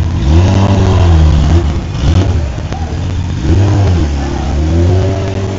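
Sport motorcycle engine revving hard as it pulls away and rides past, the pitch climbing and dropping twice.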